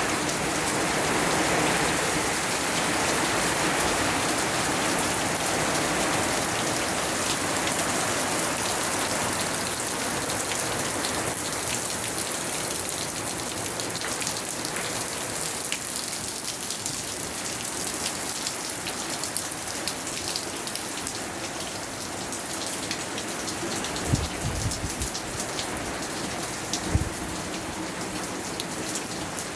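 Steady rain falling, with many individual drops pattering, easing off a little toward the end. Two brief low thumps come late on.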